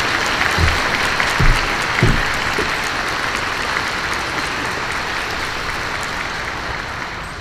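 Audience applauding, with a few dull thuds in the first two seconds, fading away near the end.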